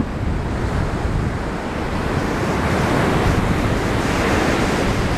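Ocean surf washing onto the beach, with wind buffeting the microphone. The hiss of the surf swells to its loudest between about three and four and a half seconds in.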